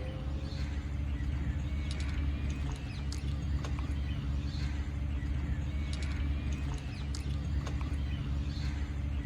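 Small birds chirping in short scattered calls over a steady low mechanical hum.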